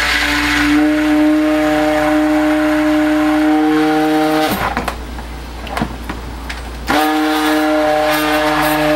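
Handheld immersion (stick) blender whirring as it blends colloidal oatmeal and kaolin clay into soap oils in a plastic bucket: a steady motor hum that stops about four and a half seconds in, a few knocks in the pause, then the blender starts again about two seconds later.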